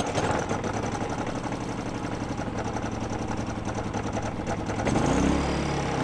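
Harbor Freight Predator 3500 inverter generator's single-cylinder engine running moments after an electric start, with a fast, even firing pulse. About five seconds in its pitch rises briefly, then settles.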